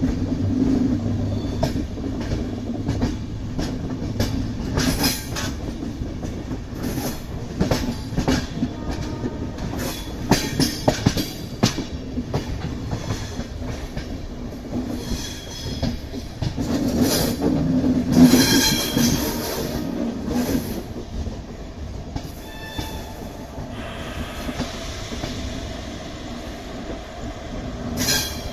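Train rolling along the track: a steady rumble with repeated wheel clicks over rail joints, growing louder for a few seconds a little past halfway.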